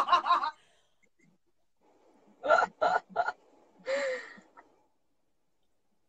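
A woman laughing: a rapid run of laugh pulses that ends about half a second in, then after a pause three short laugh bursts and a breathy exhale with a falling pitch.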